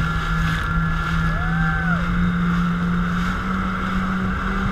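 Jet ski engine running steadily at speed, with the rush of water spray and wind around the craft.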